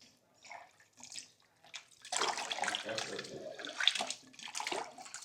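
Water splashing in a sink as raw oxtails are washed: a few light splashes, then, about two seconds in, louder steady running and splashing water.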